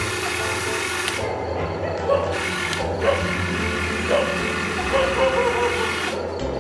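HuiNa 1580 RC excavator's electric motors and gearboxes whirring and buzzing as the boom and bucket move, the pitch wavering as the movements start and stop.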